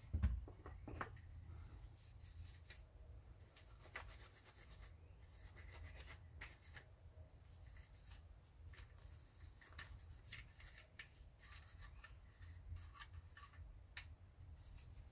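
Faint rubbing and scattered small clicks and taps from hands handling parts, with one louder knock just after the start.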